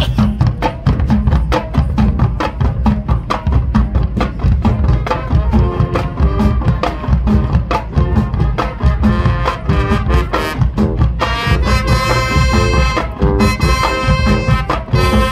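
High school marching band playing. The drumline keeps up a fast, steady beat, and brass comes in partway through, then plays loud, bright held chords from about eleven seconds in.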